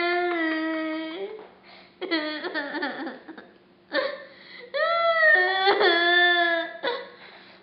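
Young girl crying hard: a long wail, then broken sobs, then more drawn-out wailing, with short catches of breath between.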